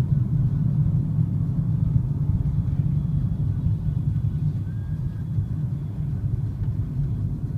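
Steady low rumble inside a taxi's cabin as the car drives through city traffic.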